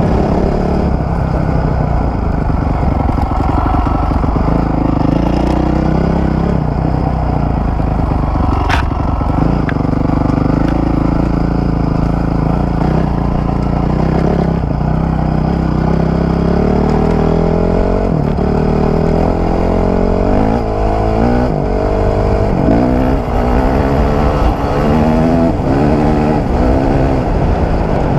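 2003 Honda CRF450 dirt bike's single-cylinder four-stroke engine under way off-road, the revs rising and falling with the throttle; in the second half it accelerates hard, the pitch climbing and dropping back several times with each gear change. A single sharp click sounds about nine seconds in.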